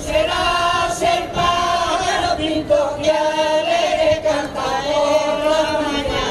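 A Galician folk group of women singers, the pandereteiras, singing a song together in held notes.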